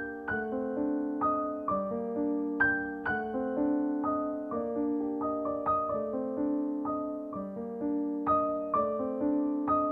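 Background piano music: notes and chords struck about twice a second and left to ring.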